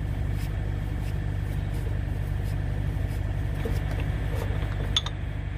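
A steady low engine rumble, as of a vehicle idling, under faint light clicks of a lug nut being hand-spun off a semi-trailer wheel stud with a speed-wrench handle. There is one sharper metallic click about five seconds in.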